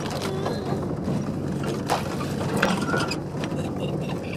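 Subaru driving over a rough dirt track, heard from inside the cabin: a steady low engine and road rumble with scattered knocks and rattles from the car's body and interior.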